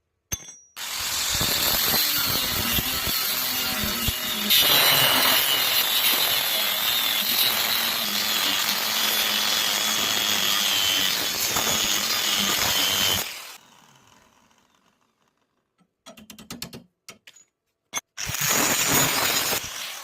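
Electric arc welding: the arc crackles steadily for about twelve seconds and stops. A string of short clicks follows, then a second short burst of arc noise near the end.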